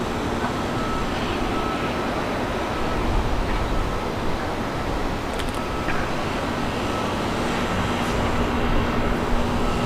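Steady outdoor background noise: an even rushing hum with a low rumble, with no single sound standing out.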